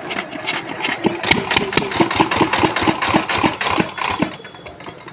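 5 hp Comet single-cylinder diesel pumpset engine chugging with a slow, regular beat of about four strokes a second. It grows louder about a second in and fades away near the end.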